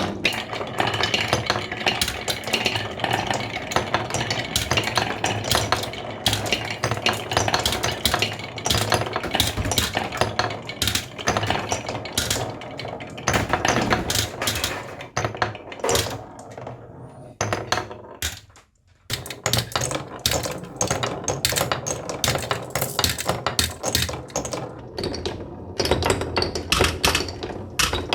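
Many marbles rolling and clattering down a toy marble run, a dense stream of rapid clicks and knocks that stops briefly about two-thirds of the way through before starting again.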